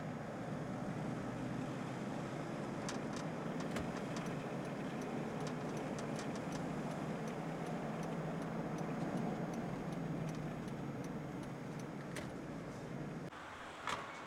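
Steady road and engine noise of a car heard from inside the cabin while driving, with light clicks scattered through the middle. Near the end the noise drops away to quieter surroundings, and there is a single sharp click at the car door.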